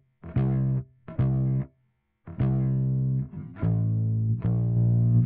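Recorded bass guitar line played back through Logic Pro's Platinum Digital compressor. About five plucked notes with sharp attacks: the first three are short and separated by brief gaps, and the last two ring on longer and run together near the end.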